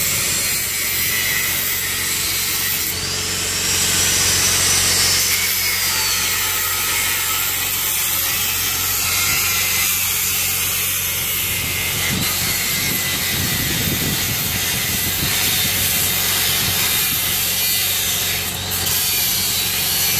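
Handheld angle grinder cutting through a rusted steel fire-escape bracket, a continuous loud, high-pitched grinding of disc on metal. The motor's whine dips and recovers a few times as the disc bites.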